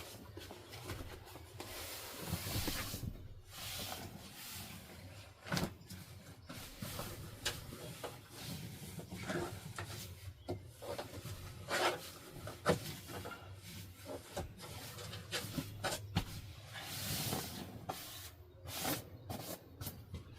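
Handling noise: irregular rubbing and rustling with scattered light clicks and knocks.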